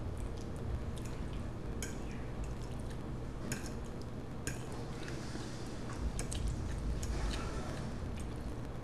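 A fork clicking and scraping now and then on a plate while spaghetti is gathered up, with soft wet chewing sounds. A steady low hum runs underneath.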